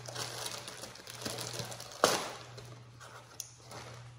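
Packaging rustling and crinkling as small boxed toy horses are handled and unpacked, with one sharp knock about two seconds in and a smaller click later.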